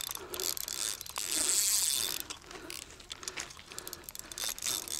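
Fishing reel clicking rapidly as line is wound in or pulled against a hooked fish, loudest for about a second near the start.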